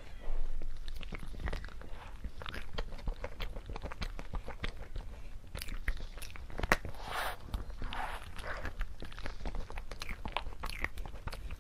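Close-up mouth sounds of a person biting into and chewing a soft glazed ice-cream cake: many small wet clicks and smacks, with a few softer swells of chewing noise.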